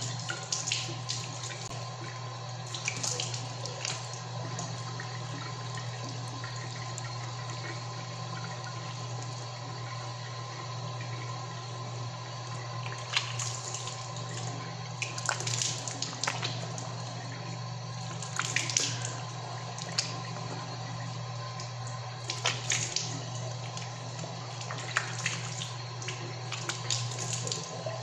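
Warm water running from a tap into a sink, with a short splash every few seconds as water is scooped up in the hands and rinsed over the face.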